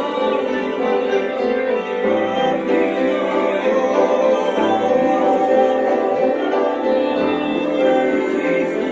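A worship song sung by several voices together, with piano accompaniment.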